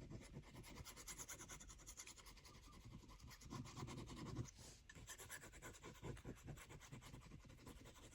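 Faint scratchy rubbing of glue being spread onto a paper page, a little louder about halfway through.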